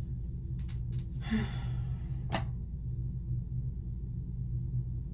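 Steady low room hum, with a few soft clicks as hands work at the hair behind the neck and a short breathy sigh about a second and a half in, then one sharper click.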